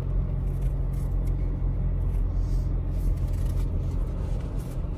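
Steady low rumble of engine and road noise inside the cab of a Ford Ranger pickup while it drives along.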